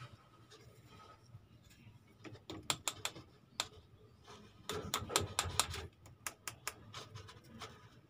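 Handling noise as a washing machine's motor capacitor is pulled out of its mount by hand: irregular sharp clicks and light plastic rattles in three short clusters.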